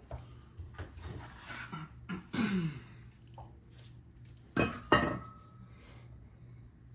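Metal clanking and knocking as the traction bar is handled and fitted against its mounting brackets, with two sharp metallic knocks about four and a half and five seconds in, the second ringing briefly.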